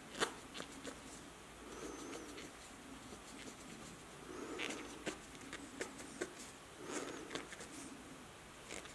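A dove cooing faintly in the background, a low coo phrase repeating every two to three seconds, with scattered light clicks from small objects being handled.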